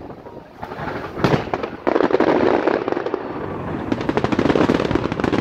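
Aerial fireworks shells bursting: a single bang about a second in, then a dense rapid crackling of many small pops from about two seconds on.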